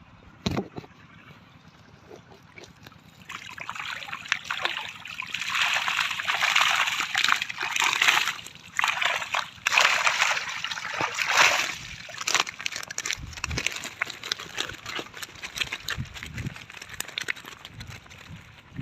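Water sloshing and splashing in irregular surges, strongest through the middle of the stretch and dying down into smaller splashes and a few low knocks near the end.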